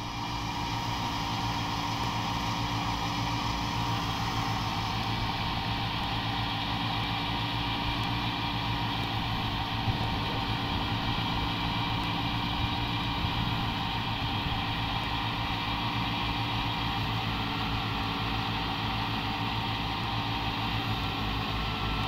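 A tractor engine runs at a steady, constant speed, driving a stationary wheat thresher as the stalks are fed in for threshing. The hum holds even throughout, with a fast regular pulsing.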